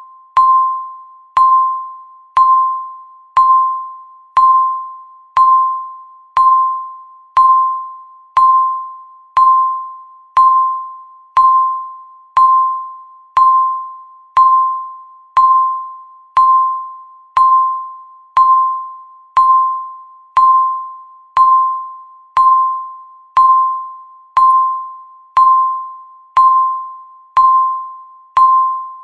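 Countdown timer's electronic beep, one short pitched beep every second, each starting sharply and dying away quickly, in a steady even rhythm.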